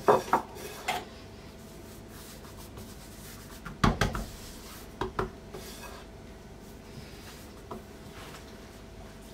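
Hands rubbing and pressing a starch-dusted sheet of dough on a silicone pastry mat as it is folded, with a few short pats near the start and again about four seconds in.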